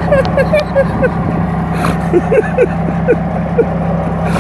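Pickup truck engine idling steadily, with a quick string of short sounds that fall in pitch, about three a second, over it.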